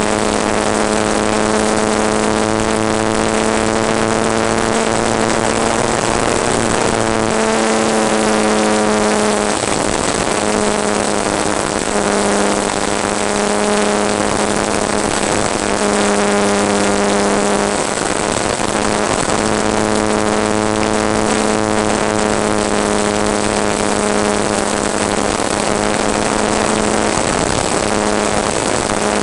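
Model aircraft's motor and propeller running in flight, heard from on board over a steady rush of wind. The hum steps up and down in pitch as the throttle changes and drops away briefly a few times.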